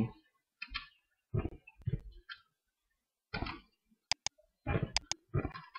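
Computer keyboard keys and mouse buttons clicking in short, separate taps, with two quick sharp clicks about four seconds in.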